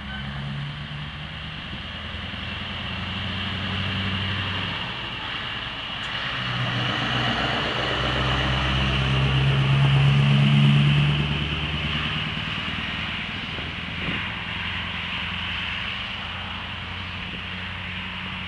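Heavy truck pulling a trailer drives past under power: its diesel engine note and tyre noise swell to their loudest about ten seconds in, then fade as it moves away.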